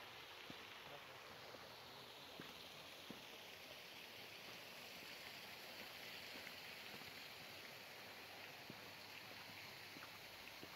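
Faint, steady rush of running water from a creek cascade, swelling a little in the middle, with a few soft ticks of footsteps on the walking track.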